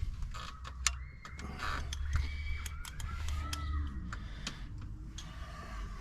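Scattered clicks and light knocks of hand tools and parts being handled on the engine during spark plug work, irregular rather than a steady rhythm.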